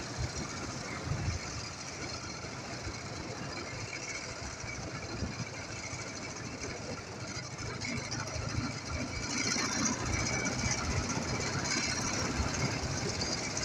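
Ural motorcycle's boxer-twin engine running under a steady hiss, getting louder from about eight seconds in.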